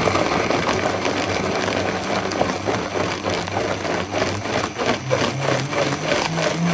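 Vitamix blender running, chopping yellow tomatoes, lemon and yellow capsicum into a puree. The motor's note rises about five seconds in, and the blender cuts off suddenly at the end.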